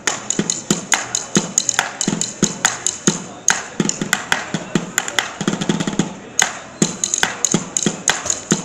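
A plastic bucket and the pavement drummed in a quick, steady rhythm: sharp strikes several times a second, some with a low thud.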